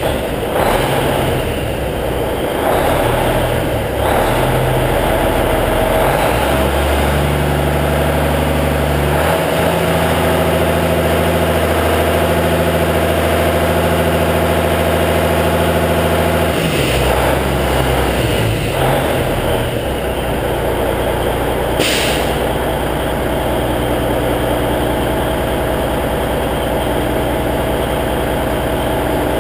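Cummins N14 diesel in a semi tractor idling after a cold start. The engine speed is held up for about ten seconds in the middle, then drops back to a lower, steady idle. There is a brief hiss late on.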